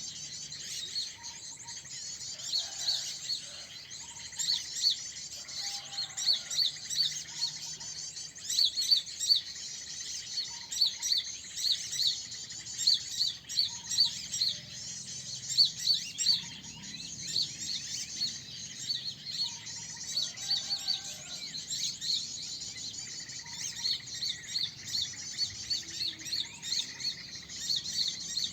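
Many small birds chirping and twittering together in a dense high chatter, with runs of short, sharp repeated notes throughout.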